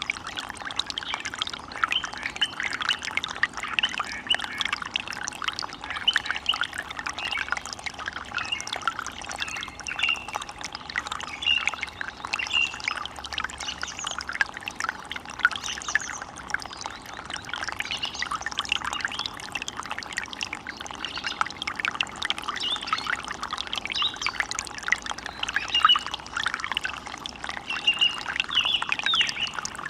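Running water splashing and trickling steadily, with short bird chirps scattered over it.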